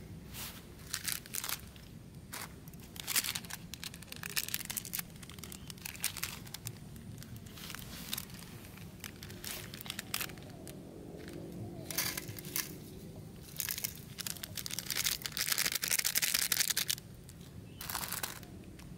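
Small foil-plastic seasoning sachets from instant fried-noodle packs being torn open and crinkled by hand: a run of short crackly rustles, with a longer stretch of continuous rustling near the end.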